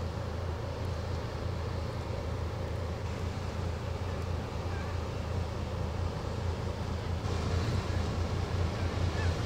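Low, steady drone of a general cargo ship's engine passing close by, with wind on the microphone. About seven seconds in, a rushing noise of water at the bow joins it and the sound grows louder.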